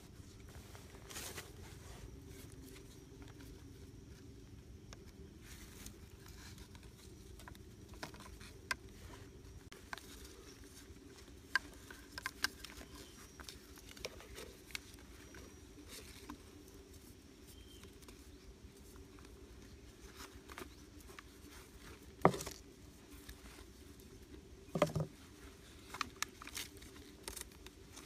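Handling noise from a small PVC-pipe trap being assembled by hand with rubber strips and a bamboo stick: scattered light taps, clicks and rustles, with a sharper knock about two-thirds of the way in and a short cluster of knocks soon after.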